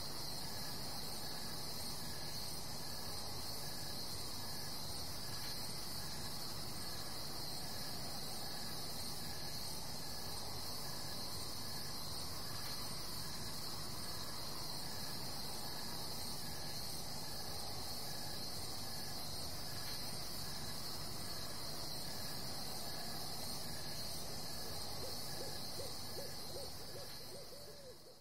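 Night forest ambience: a steady high chirring of insects with a short, high owl-like hoot repeating at an even pace, fading out near the end.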